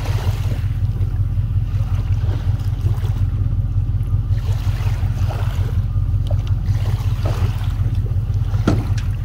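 Outboard motor of a small aluminium fishing boat running steadily at low throttle, a continuous low hum, as the boat is driven up onto its trailer.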